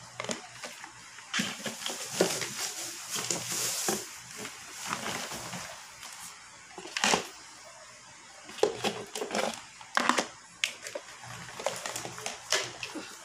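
Plastic flower pots and their saucers handled and set down on a tile floor, with plastic bags crinkling: irregular rustling and crackling with a few sharp clacks, the loudest about seven and ten seconds in.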